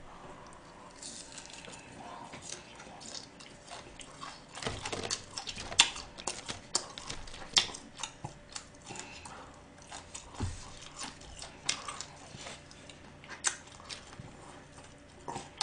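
Close-miked chewing of a mouthful of gwamegi (dried saury) wrapped in greens, with wet mouth smacks and short clicks at irregular intervals.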